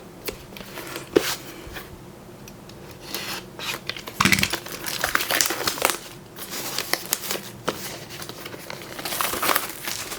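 Packaging of a new in-ear monitor being opened by hand: crinkling and rustling of wrapping and box, with small clicks and knocks, busiest about four seconds in and again near the end.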